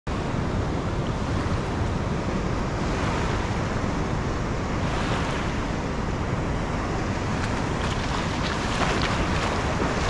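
Ocean surf washing in over sand and rocks, a steady wash that grows a little louder near the end, with wind rumbling on the microphone.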